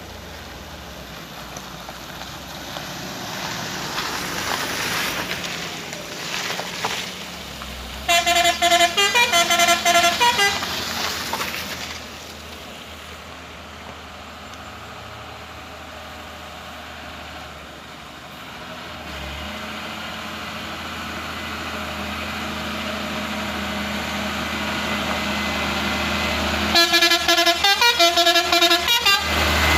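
A vehicle's multi-tone horn sounds twice in rapid pulsing bursts that step up and down in pitch, about 8 seconds in and again near the end. Underneath, the diesel engine of a Mitsubishi Fuso tanker truck labouring up a steep grade grows steadily louder as it approaches.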